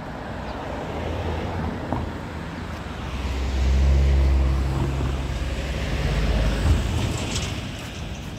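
A vehicle's low rumble with an engine hum, swelling to its loudest about four seconds in and easing off near the end.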